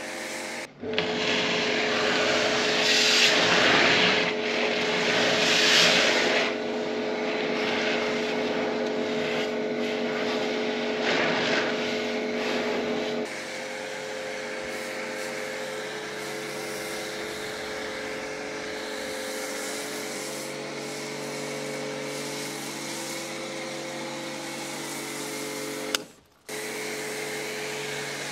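Kärcher electric pressure washer running with a snow foam lance: a steady motor hum under the hiss of the spray, which is loudest over the first dozen seconds and then falls away, leaving the hum. The sound cuts out briefly near the end.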